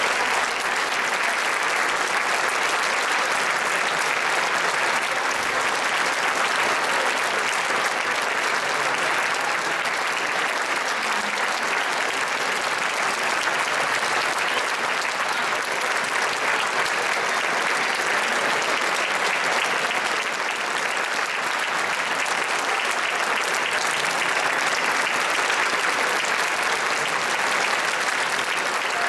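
Audience in a concert hall applauding steadily after an orchestral performance.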